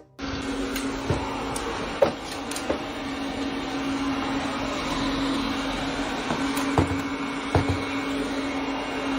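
A steady mechanical hum over a bed of noise, with several light knocks scattered through it.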